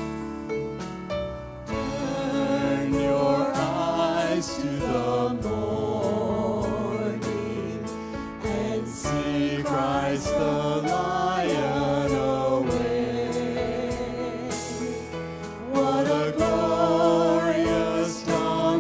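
Church worship band playing a song: the instruments alone at first, then a man and two women singing together from about two seconds in, over bass and electric guitar.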